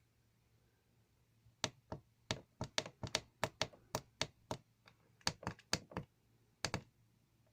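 Buttons on a Chinese diesel heater's LCD controller being pressed: an uneven, fairly quick run of about twenty sharp clicks, starting about a second and a half in and stopping near the end.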